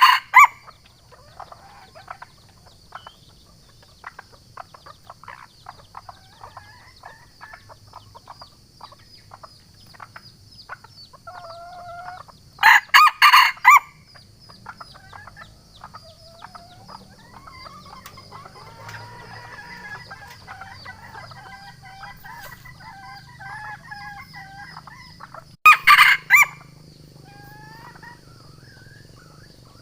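Wild junglefowl rooster crowing: three short, clipped crows of several quick syllables about 13 seconds apart, the first already under way at the start. These are challenge crows that call out a rival cock. Between the crows come faint clucks and other small bird calls over a steady high insect hum.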